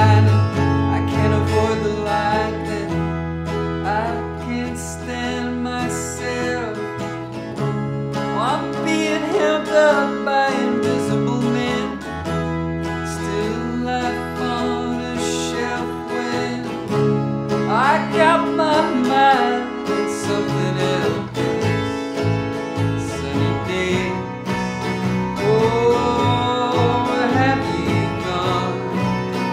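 Twelve-string acoustic guitar strummed in chords with electric bass holding long low notes, under a man's singing voice that comes in and out in phrases.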